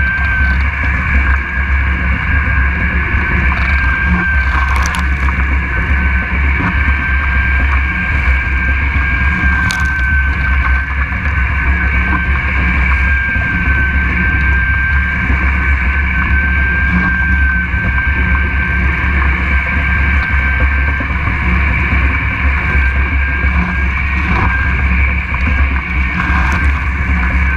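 Mach 2 foiling Moth sailing fast on its foils: wind buffeting the boat-mounted camera and water rushing past, with a steady high whistle running through it.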